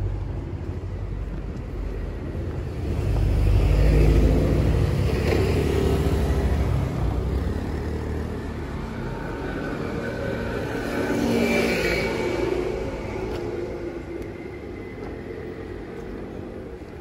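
Road traffic: cars and a motor scooter passing along the street close by. The rumble is loudest about four seconds in and swells again around twelve seconds.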